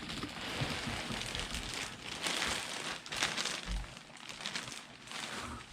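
Plastic packaging crinkling and rustling as a replica championship belt is handled and lifted out, louder in the middle.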